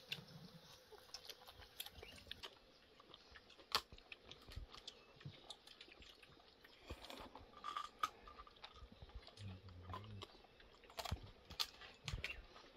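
Faint, scattered clicks and light taps of people eating rice by hand from a metal tray, with some chewing.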